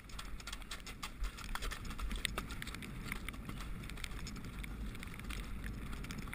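A horse's hoofbeats as it goes along gravel and then onto turf, with many small clicks and clatters over a low, steady rumble, heard from a camera riding on the horse.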